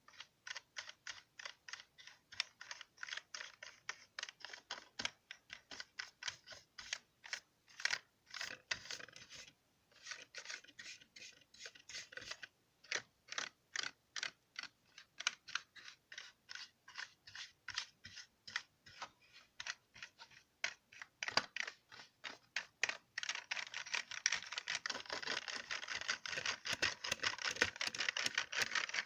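Computer keyboard keys being pressed in a steady run of sharp clicks, with two short pauses, then a much faster, denser clatter of typing from about two-thirds of the way in.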